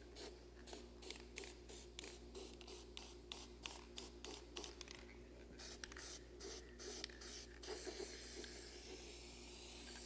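Aerosol can of white spray paint hissing in short spurts, a couple a second, then one longer, steady spray for the last two seconds or so.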